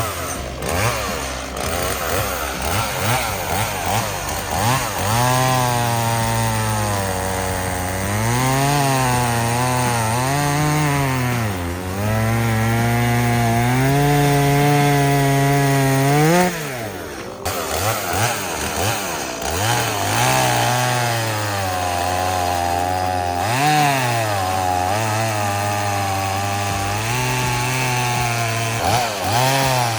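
Chainsaw running and cutting wood, its engine pitch sagging and recovering again and again as the chain bites under load. About halfway through it revs up sharply, drops off suddenly, then picks up and cuts on.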